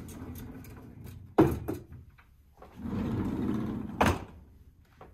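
Wooden sliding lattice doors rumbling along their track as they are pushed open. Each slide ends in a sharp knock as the door hits its stop, about a second and a half in and again about four seconds in.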